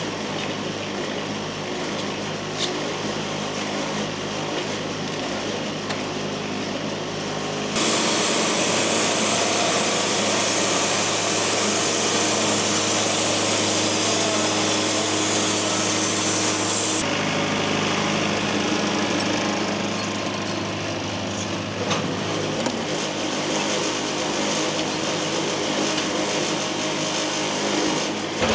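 Wood-Mizer LT70 band sawmill running steadily, its engine humming as the band blade saws through poplar. There is a louder hissing stretch from about 8 to 17 seconds in. The blade is dull and due for a change.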